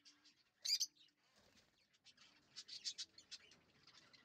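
Faint, high-pitched lovebird chirps: a short burst just under a second in, then a run of quick chirps through the middle.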